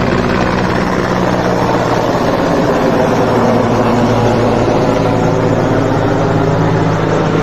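Indian Air Force helicopter flying overhead: a loud, steady drone of rotor and engines.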